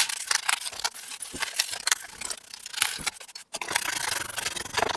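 A brush scrubbing over the bare switches of a BBC Micro keyboard with its keycaps removed: a quick, irregular run of short scratchy strokes, with a brief pause about three and a half seconds in.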